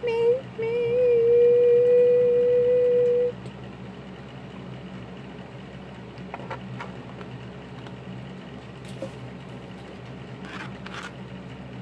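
A high, drawn-out vocal note that rises briefly, then holds at one steady pitch for about three seconds and stops. After it come a few faint clicks and crackles.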